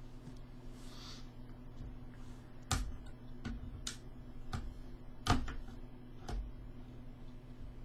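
Sharp plastic clicks and taps from Cherry MX switches being pried open and their stems and springs handled with small hand tools. About nine irregular clicks, starting a few seconds in.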